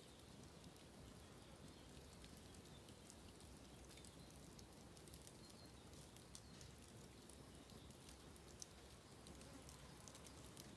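Bamboo fire crackling faintly: scattered small ticks and pops, with one sharper pop late on, over a low background rumble.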